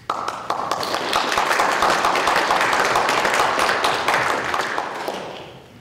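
Audience applauding: it starts suddenly, holds steady and dies away over the last second or so.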